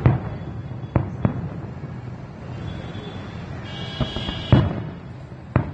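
Fireworks going off in a series of sharp bangs at irregular intervals. The loudest bangs come at the very start and about four and a half seconds in.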